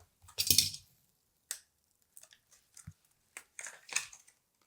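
Hands handling PC component boxes and packaging: a brief crinkling rustle, then scattered light clicks and taps, with one soft low thump near the middle.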